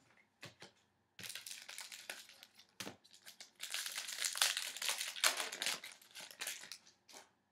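Foil wrapper of a hockey card pack crinkling as it is torn open and handled. A few faint clicks, then from about a second in a long run of dense crackling that dies away near the end.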